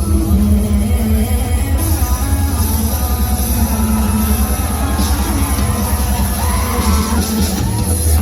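Loud music with a heavy bass, played over a show sound system.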